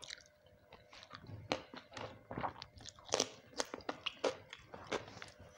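A person chewing and crunching food close to the microphone, with irregular sharp crunches and mouth clicks, the loudest about three seconds in.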